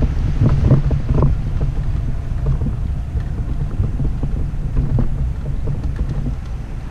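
Wind buffeting the camera's microphone, a steady low rumble, with a few short knocks in the first second or so.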